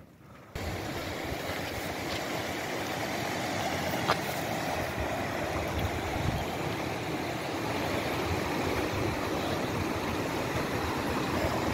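Fast-flowing mountain river rushing: a steady, even rush of water that cuts in about half a second in.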